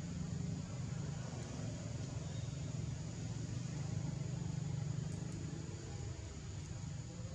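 A motor vehicle engine running with a steady low rumble. It grows a little louder around the middle and eases off near the end.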